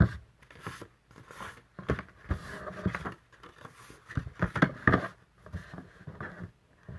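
Scissors cutting paper in short irregular snips, with paper rustling as it is handled.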